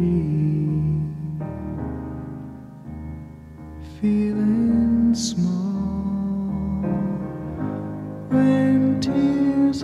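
Slow instrumental background music, with piano among the instruments.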